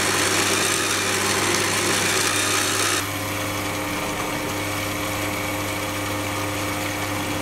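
Sieg C3 mini lathe running with its threading gearbox and change gears engaged, a steady motor hum under a busy whirring of turning gears. About three seconds in the gearbox is disengaged: the gear noise stops and the lathe runs quieter on its motor and spindle alone.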